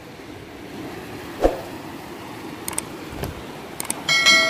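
Low steady background noise with a single dull knock about a second and a half in, then near the end a click followed by a bright bell ding that rings on and dies away over about a second: the subscribe-button sound effect.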